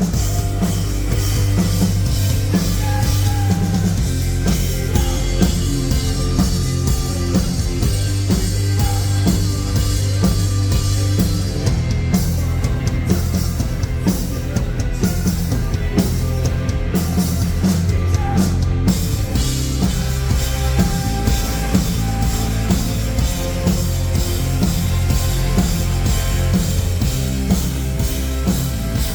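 Rock band playing live, loud and steady, with drum kit and bass to the fore; the top end thins out for a stretch in the middle.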